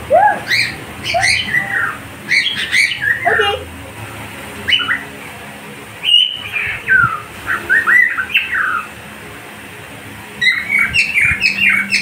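Cockatiel squawking in quick runs of short chirps that slide up and down, in four bursts with pauses between: the bird is angry at being teased with food.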